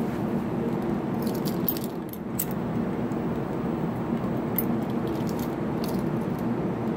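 Keys on a keyring jangling as the lighter clipped to them is held to a corncob pipe to relight it. The clinks come in a cluster about a second in and twice more later, over a steady low hum.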